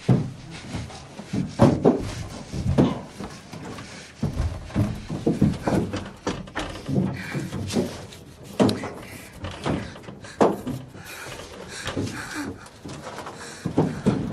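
Irregular heavy thumps and bangs against the metal body of a bus, heard from inside, mixed with frightened panting and whimpering from the passengers.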